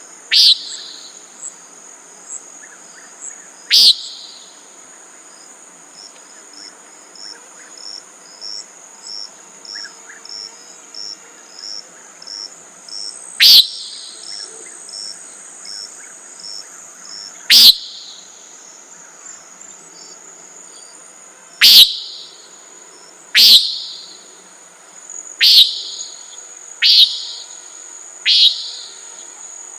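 Common nighthawk giving its buzzy, nasal 'peent' call about nine times, spaced several seconds apart at first and every second or two near the end. Crickets or other insects trill steadily underneath.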